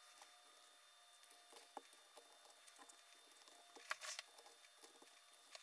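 Faint handling of shredder cutter discs and spacers being slid onto the cutter shaft: a few light clicks, and a short scrape about four seconds in.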